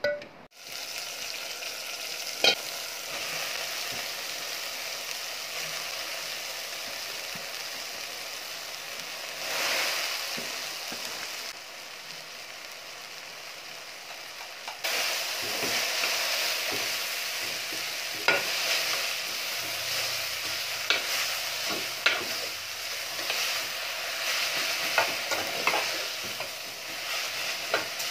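Chopped kale sizzling as it fries in a steel pot, with a spoon stirring it and now and then clicking against the pot.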